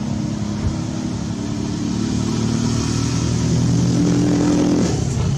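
A motor engine running, its note slowly rising over several seconds, then falling away just before the end.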